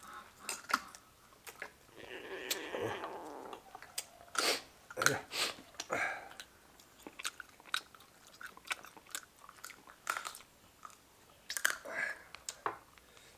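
Close-up chewing and crunching of salted duck, an irregular run of sharp crunches and clicks.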